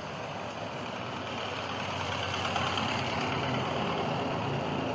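Vehicle engines running as cars and a motorcycle roll slowly in: a steady hum that grows gradually louder.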